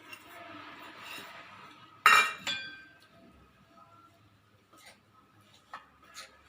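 Cut raw turmeric pieces tipped into a bowl of spices with a soft rustle, then a utensil clinks twice against the bowl with a ringing sound about two seconds in, followed by a few light clicks.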